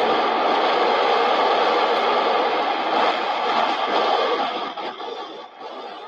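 Steady rushing wind noise from the soaring eagle's flight video, dropping in level about four and a half seconds in.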